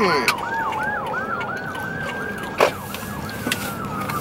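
Emergency vehicle sirens heard from inside a car: one in a rapid yelp of several sweeps a second, another in a slow wail that falls, rises and falls again. A single sharp knock comes a little past halfway.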